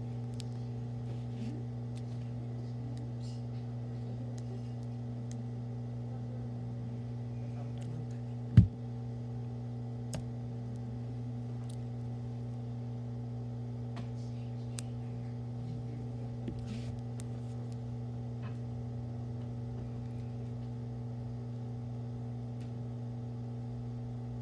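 Steady electrical mains hum, with a few faint clicks and a single low thump about eight and a half seconds in.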